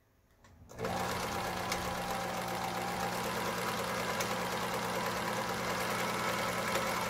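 Riccar BL3800 household sewing machine starting up about a second in and running steadily at an even speed, test-sewing a special pattern stitch. The stitches are forming properly, showing the machine works again after repair.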